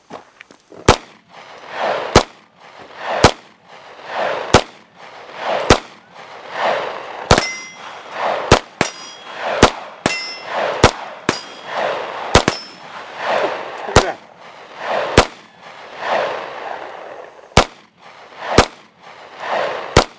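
Handgun fired at a steady pace, about fifteen shots roughly a second apart, at a steel dueling-tree target; each shot is followed by the delayed clang of the hit plate. A few hits in the middle leave the steel ringing with a high tone.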